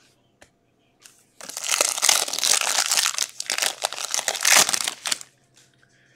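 Foil wrapper of a baseball trading-card pack being torn open and crinkled by hand. It starts about a second and a half in, goes on for about four seconds, then stops.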